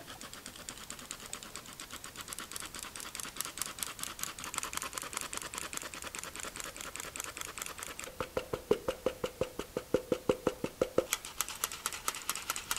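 Hand-operated metal flour sifter being worked over a glass bowl, its handle clicking as the agitator scrapes flour through the mesh: a fast, even clicking of about four to five strokes a second. The clicks get louder and slightly ringing about eight seconds in.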